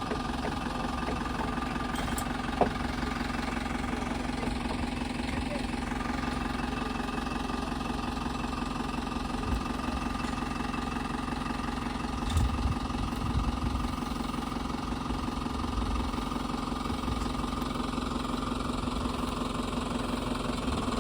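Tractor engine running steadily at idle, with a sharp clunk about two and a half seconds in and a few more thumps about twelve seconds in.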